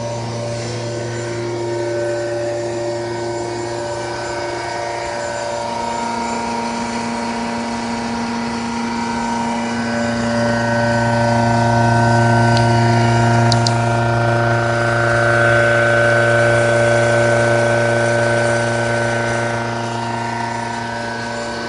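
A rotating machine running steadily at 7000 RPM, during a retest for loud noise and heavy vibration. It gives a strong hum at the rotation rate and several steady higher tones, and it grows louder for several seconds in the middle.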